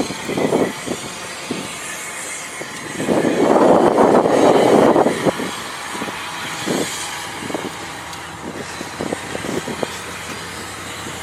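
Canadian Pacific GE ES44AC diesel locomotive leading a freight train as it approaches, its engine and the train's running noise heard. The sound swells loudest from about three to five seconds in, then settles to a lower, steady rumble as the lead unit comes into view near the end.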